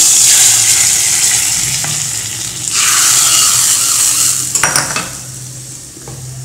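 Hot tempering oil with whole spices and curry leaves poured into a pot of mutton curry, sizzling loudly and fading, with a second burst of sizzling about three seconds in. A few metal clinks against the pan come near the end.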